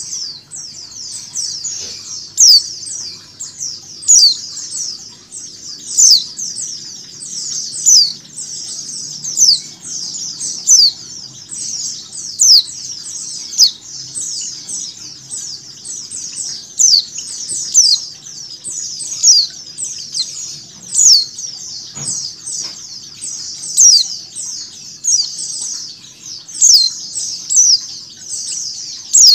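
A flock of white-eyes (pleci) chirping: dense, unbroken high twittering, with a louder sharp call note about every second and a half.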